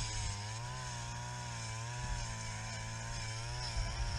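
Small petrol engine idling steadily, its pitch wavering slightly.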